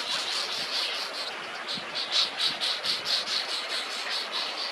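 An insect chirping in a rapid, even pulse, about five chirps a second, over a steady background hiss.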